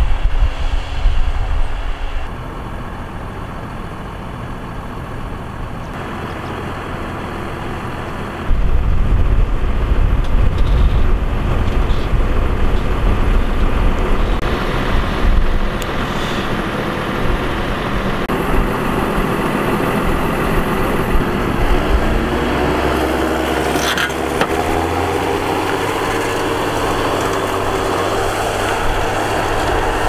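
John Deere tractor's diesel engine running steadily under load while pulling a disc harrow through dry soil, with the sound shifting abruptly between shots. Near the end the engine's pitch rises.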